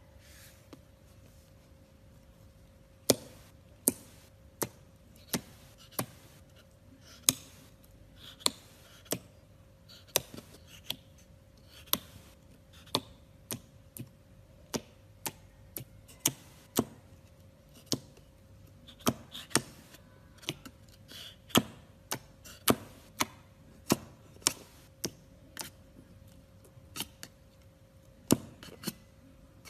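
Slime being worked in a plastic slime palette: sharp clicks and taps come one after another at an irregular pace, roughly one or two a second, with a faint crackle between them and a faint steady hum underneath.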